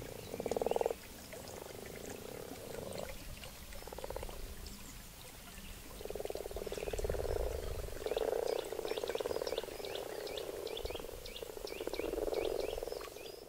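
Frogs croaking in a pond: repeated low, pulsed, purring croaks, each lasting about a second, coming almost without a break in the second half. Short high chirps sound over them from about eight seconds in.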